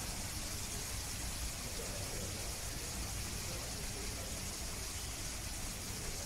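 Steady hissing background noise with no distinct events.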